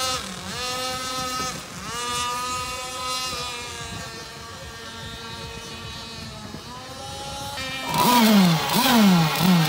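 Small engines of remote-controlled racing speedboats whining across the water, the pitch dipping and climbing again several times as the boats throttle and turn. Near the end, a louder and closer engine revs in quick repeated bursts that rise and fall.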